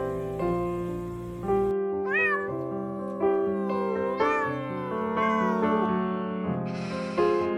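Cat meowing several times, each call rising and falling in pitch, over gentle background piano music. A short hissing burst comes near the end.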